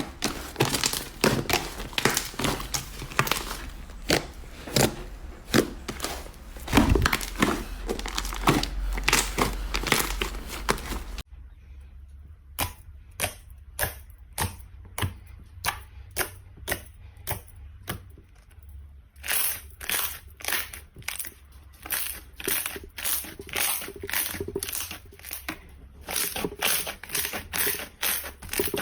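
Slime being squeezed and pressed by hand, crackling and popping densely for about the first eleven seconds. After an abrupt change it gives a regular run of crisp pops, about two a second, which grow louder and sharper past the middle.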